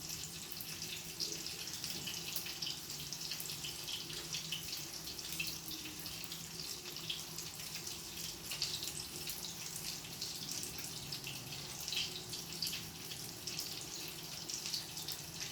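Water running from a kitchen tap into a sink: a steady splashing hiss, with a faint low hum underneath.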